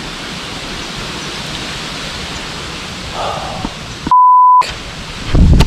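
Steady outdoor rushing noise, then about four seconds in a single censor bleep: a loud pure beep about half a second long, with all other sound cut out while it lasts. Dance music with a beat starts near the end.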